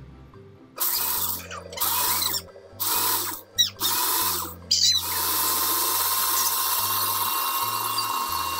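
Ninja personal blender blending candy and milk into a smoothie: the motor runs in several short pulses starting about a second in, then runs continuously from about five seconds in.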